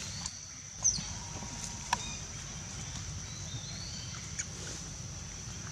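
Forest ambience: a steady high-pitched whine over a low rumble. It is broken by a few sharp clicks and brief chirps, the loudest click about a second in.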